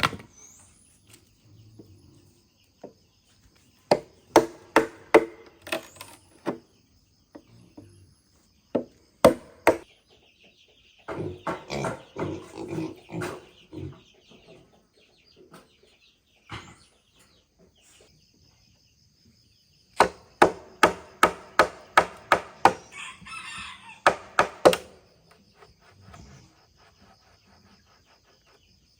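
Runs of sharp chopping strikes on bamboo, about three a second, with chickens clucking and calling between and over them. A thin, steady, high insect whine sounds in the pauses.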